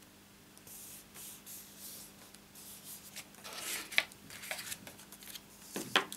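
Paper and cardstock rustling and sliding against one another as pieces are handled on a desk. Two sharp taps sound, about four seconds in and just before the end.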